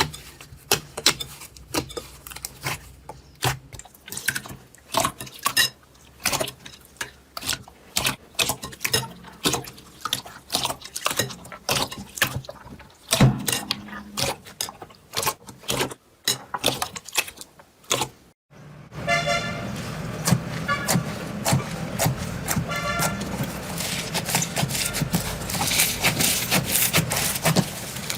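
Slime being pressed and squished by hand, giving a quick run of sticky pops and clicks. About two-thirds of the way in it cuts to another slime clip with a few short squeaky tones and then a steady rubbing hiss.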